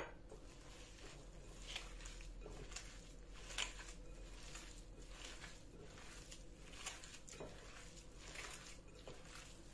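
Hands kneading raw ground beef mixed with egg, onion and breadcrumbs in a glass bowl: faint, irregular wet squelching.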